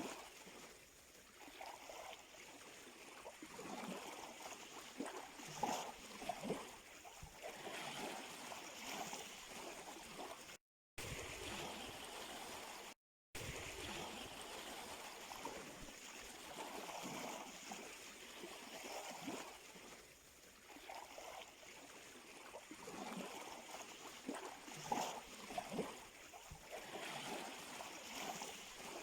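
Gentle sea water lapping and gurgling at the shore, with a steady wash and irregular small splashes. The sound cuts out completely twice for a moment, about 11 and 13 seconds in.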